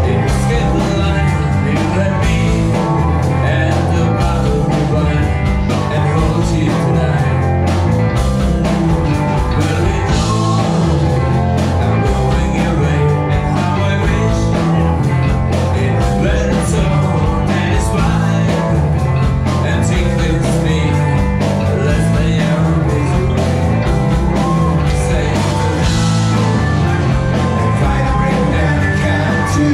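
A live rock band playing loudly and steadily, with electric guitars, bass guitar, drums and keyboard, and a singer's voice over them.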